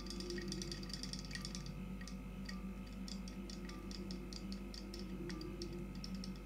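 Robotic toy fish's tail motor ticking as it swims in a bowl of water: a dense high buzz for the first second or two, then separate light ticks several times a second, a little irregular, over a faint steady hum.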